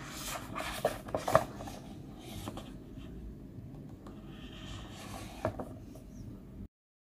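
Cardboard-backed plastic blister pack handled and turned over in the hands: rubbing and scraping of card and plastic with a few sharp clicks, the loudest about a second and a half in. The sound cuts off abruptly near the end.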